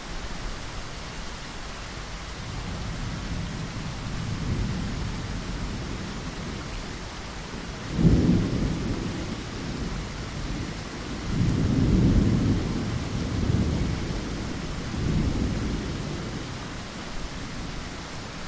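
Steady rain with thunder. A sharp clap about eight seconds in is followed by long, low rolling rumbles, the loudest a few seconds later.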